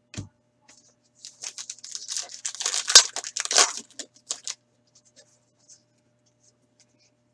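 A hockey card pack's wrapper being torn open and crinkled by hand: a run of crackling tearing that starts just over a second in, is loudest near the three-second mark and stops after about three seconds.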